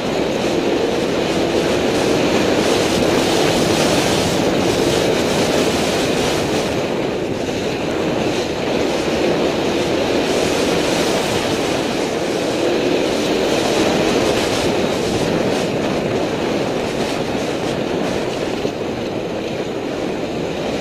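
Enduro motorcycle engine running along a rough dirt trail, its pitch rising and falling with the throttle, heard from a camera on board the bike amid a dense, rough rumble.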